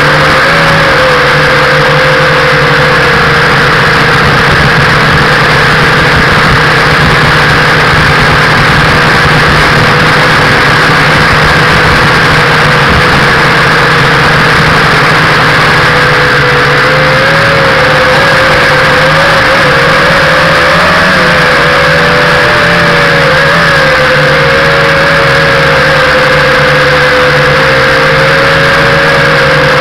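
Nine Eagles Galaxy Visitor 6 quadcopter's electric motors and propellers whining steadily, heard loud through its own onboard camera microphone. About halfway through, the pitch starts to waver up and down as the throttle shifts in flight.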